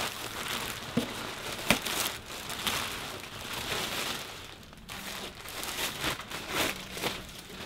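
Pink plastic bag crinkling and rustling as it is pulled down and off an instrument by hand, with a couple of light knocks early on.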